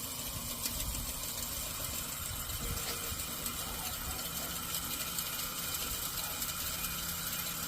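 Box fan motor running steadily, spinning a bicycle wheel rim fitted in place of its fan blades: an even hum with a low rumble.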